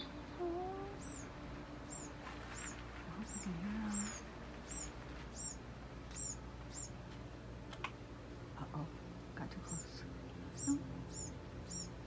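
Baby birds in a wooden birdhouse calling: a steady run of thin, high chirps, about two a second.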